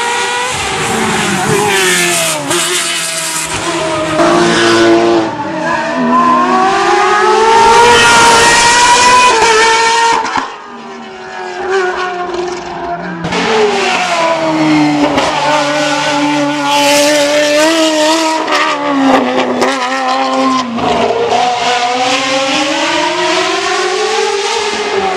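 Ferrari 360 N-GT race car's Michelotto-tuned 3.6-litre F131 V8, naturally aspirated, revving high and hard, the pitch climbing and dropping again and again through gear changes. The sound falls away briefly about ten seconds in, then comes back.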